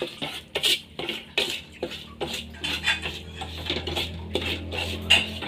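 Metal spoon scraping and clinking against an aluminium wok as thick chili sambal is stirred to cool it off the heat, in repeated strokes about two to three a second.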